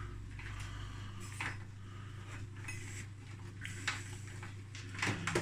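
Scattered light metal clinks and taps from small parts and tools being handled on a workbench, over a steady low hum.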